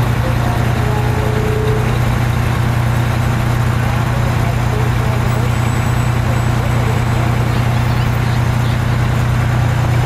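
A fire truck's diesel engine running steadily as the truck rolls slowly past close by, a loud, even low drone.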